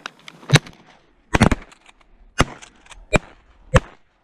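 Shotguns from several hunters firing a volley of about six shots over three seconds, two of them nearly together about a second and a half in.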